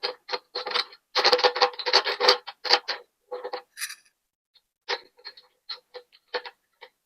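Irregular runs of sharp metallic clicks with a slight ring, from wrench work on the mini bike's handlebar riser bolts. The clicking is densest about a second in.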